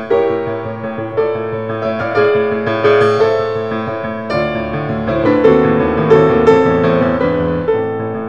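Background piano music with a steady melody of struck notes.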